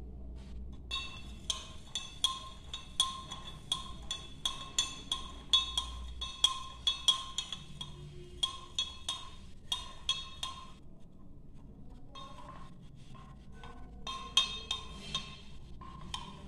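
Metal spoon clinking against the inside of a glass tumbler while stirring salt into water, the glass ringing briefly with each tap. Quick irregular clinks about two or three a second, a lull about eleven seconds in, then more clinks near the end.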